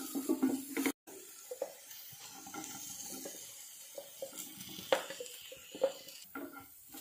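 Wooden spatula scraping and stirring chopped onions as they sizzle in oil in a non-stick pan. The sound drops out briefly about a second in, then a faint steady sizzle continues, broken by a few light knocks.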